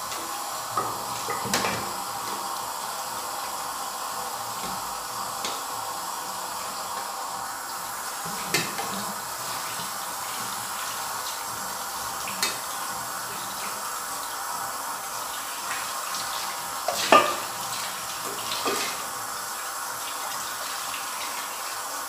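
Tap water running steadily into a stainless-steel sink while an aluminium pot is washed and rinsed. A few sharp clanks of the pot against the sink break in, the loudest about seventeen seconds in.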